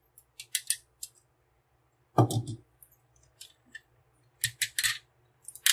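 Plastic clicks and clacks from a large transforming robot toy's joints and parts as they are handled and adjusted, in short irregular bursts, with one louder knock about two seconds in.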